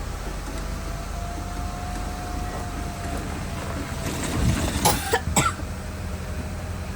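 Blizzard wind on the microphone as a steady low rumble, with a few short coughs about five seconds in.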